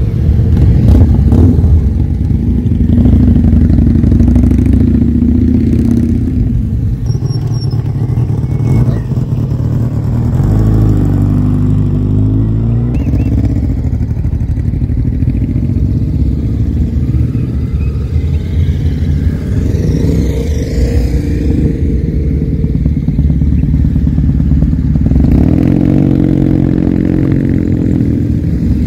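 A stream of motorcycles riding past one after another, engine notes rising and falling as each bike accelerates by and away.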